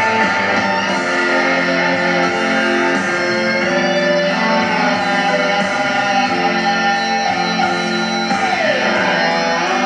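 Guitar-led music played through a stereo receiver and loudspeakers.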